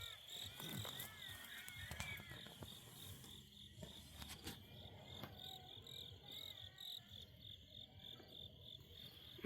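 Faint crickets chirping in a steady, even pulsing rhythm.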